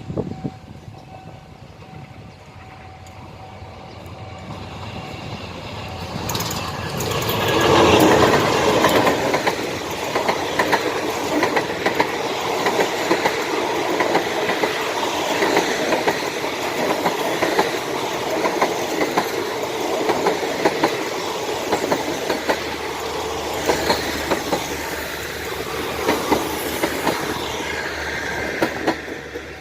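Diesel-hauled passenger train passing close by: it builds up, is loudest as the locomotive goes past, then the carriages roll by with a steady clatter of wheels over rail joints. The sound cuts off suddenly near the end.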